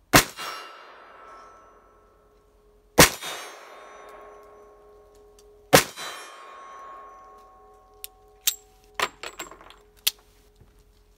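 Three shots from a Japanese Type 26 9 mm revolver, about two and a half seconds apart, each followed by a long metallic ringing. Near the end come several sharp metallic clicks and clinks as the revolver is handled.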